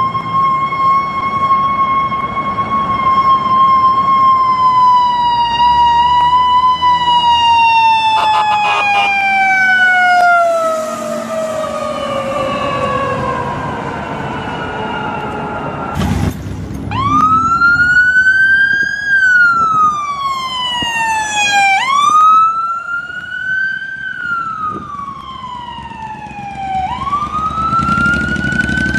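American ambulance siren. A held tone slowly slides down in pitch and fades. After an abrupt break about 16 seconds in, a wail siren starts that rises and falls over and over, each cycle about five seconds long.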